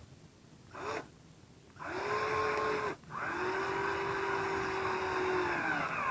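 Small electric screwdriver motor whining as it drives a screw into a new plastic A-arm: two short blips, then two longer steady runs, the pitch sagging near the end. The screw keeps turning as if the A-arm's thread were stripped.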